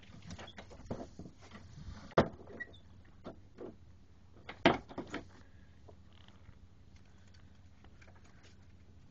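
A few sharp knocks and taps aboard a sailboat under sail, the loudest about two seconds in and again near five seconds, over a low steady rush of wind.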